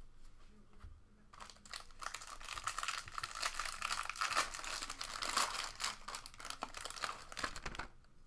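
Foil wrapper of a baseball card pack crinkling and tearing as it is handled and opened: a dense crackle that starts about a second in and stops just before the end.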